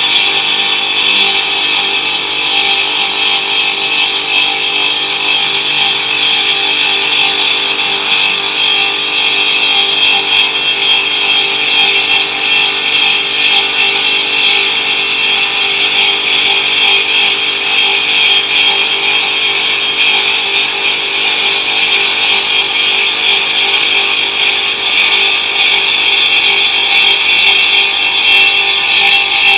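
5-axis CNC cutting machine running and cutting, a steady high-pitched mechanical whine with a constant drone under it.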